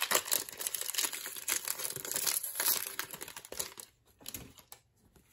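The wrapper of a 1995 Topps Bazooka baseball card pack being torn open, crinkling and crackling, dying down about four seconds in to a few light ticks as the cards come free.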